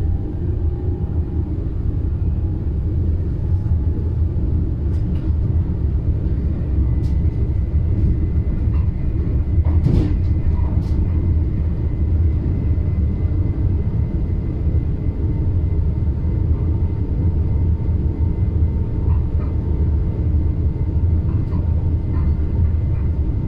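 NS Stadler FLIRT electric train running along the track, heard from the driver's cab: a steady low rumble. A faint steady high tone comes in after about six seconds, and a few sharp clicks fall near the middle.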